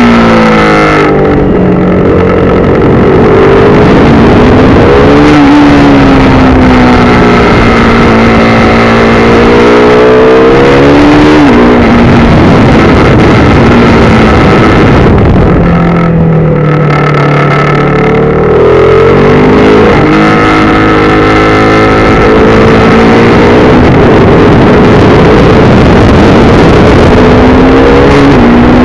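KTM RC 390's single-cylinder engine heard from on board while riding hard, its pitch rising and falling with throttle and gear changes. It drops lowest about halfway through, then climbs again in steps through the upshifts.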